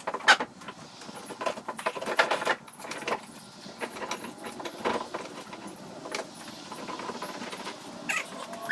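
Irregular rattling clatter and knocks, about one every second or so. They come from handling a plywood tabletop pivoted on a metal bar through its wooden stand.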